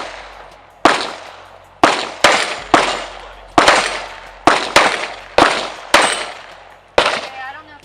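Heckler & Koch USP .45 pistol fired in steady succession, about ten sharp shots half a second to a second apart, each trailing off in a short echo. It is a full magazine being emptied.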